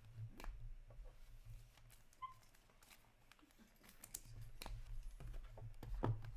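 Trading cards being handled and shuffled, with light scattered clicks and taps over a low steady hum, and a louder knock about six seconds in as a card box is moved on the table.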